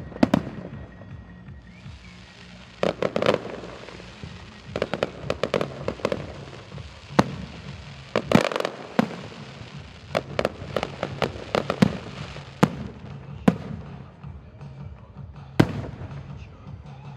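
Aerial fireworks bursting: sharp bangs at irregular intervals, some coming in quick clusters.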